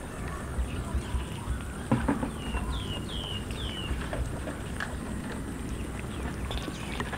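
Crowd of street cats eating rice and fish off a concrete floor: chewing and lapping with many small scattered clicks. Midway through comes a run of four short, high chirps, each falling in pitch.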